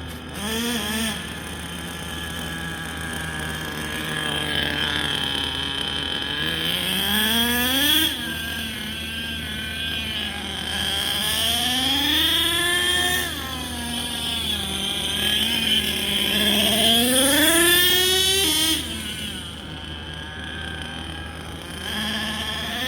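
The Savage 25's engine running and being revved up and back down several times, the pitch climbing slowly each time. The highest rev comes about two-thirds of the way through before it falls back toward idle.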